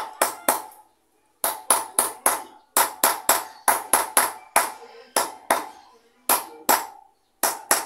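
Hammer blows driving a wheel bearing into a motorcycle rear hub through a bottle used as a drift. The blows are sharp and ringing, about four a second, in runs with short pauses about a second in and near the end.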